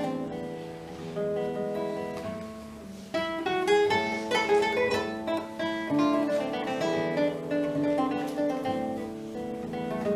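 Solo acoustic guitar playing a nineteenth-century classical-romantic piece, with plucked melody notes over chords. A louder phrase comes in about three seconds in.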